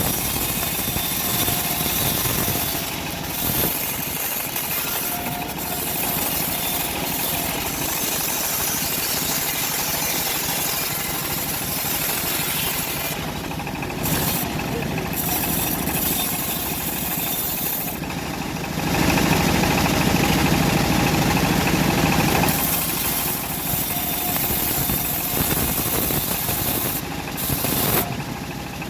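Homemade engine-driven bandsaw mill running steadily while sawing an old teak log, growing louder and fuller for a few seconds about two-thirds of the way through.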